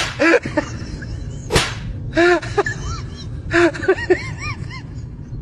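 Men's voices calling out in a crowd, in short clusters, with one sharp smack about one and a half seconds in.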